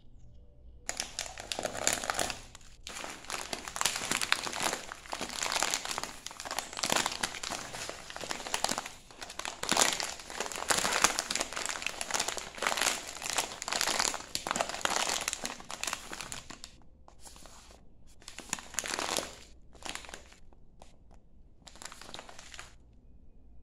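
A glossy plastic Basilur black tea pouch crinkling as it is handled and turned over in the hands: dense crackling for about fifteen seconds, then a few shorter crinkles.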